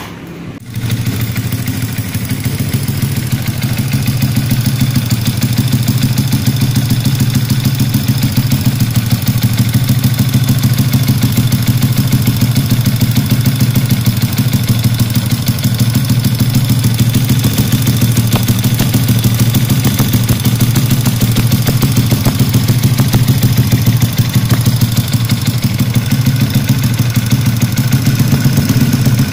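Bored-up Yamaha Jupiter four-stroke motorcycle engine idling steadily through an aftermarket BRS exhaust with a stainless header and RCB-style silencer: a fast, even, deep putter that comes in loud about a second in and holds at a steady pitch.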